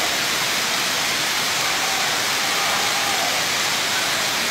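Heavy downpour: rain pouring down in a steady, dense hiss.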